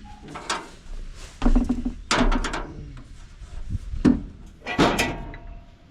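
A string of sharp knocks and clunks, hand tools and parts being handled during a repair, with no engine running.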